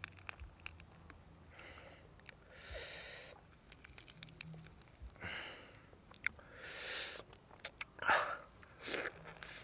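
A person eating roasted duck: a handful of sharp breaths or sniffs, the strongest about three and seven seconds in, with small wet mouth clicks and smacks between them.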